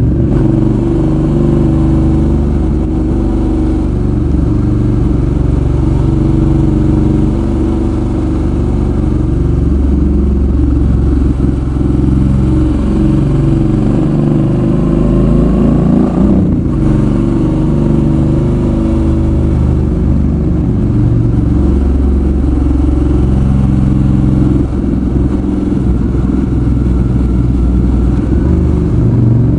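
Suzuki V-Strom 650's V-twin engine running under way on the road, its pitch rising and falling with the throttle. About halfway through the revs climb, then briefly drop away.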